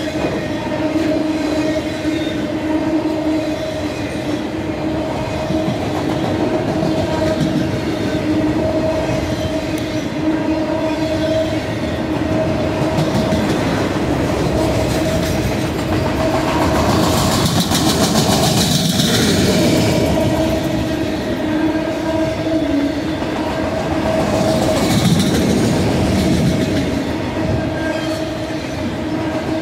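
Freight train of autorack cars rolling past close by, its wheels running steadily on the rails with a steady tone underneath. It grows harsher and brighter for a few seconds past the middle.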